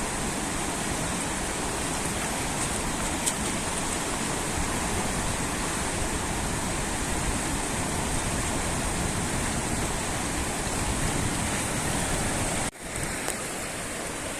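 Steady rush of fast-flowing muddy river water. Near the end it cuts out for an instant and comes back a little quieter.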